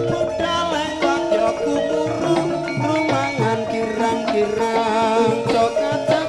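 Javanese gamelan music for a masked dance: ringing metallophone notes over steady hand-drum patterns, with a wavering melody line above.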